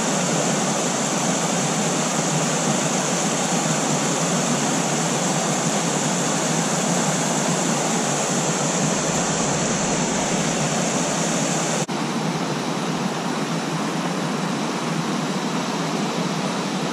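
Creek water rushing steadily, an even hiss of flowing water. About twelve seconds in there is a momentary break in the sound, after which the rush goes on slightly changed.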